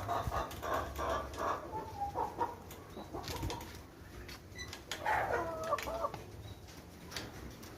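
Domestic hens clucking and calling in short bursts, one group of calls about two seconds in and a louder one about five seconds in, with a few light clicks between.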